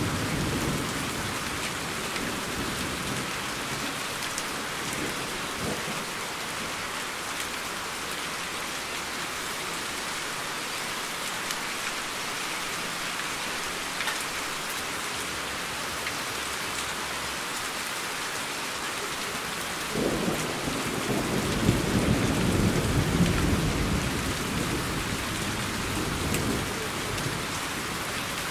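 Steady heavy rain, with a low roll of thunder dying away in the first second and another roll of thunder building about two-thirds of the way through and rumbling for several seconds.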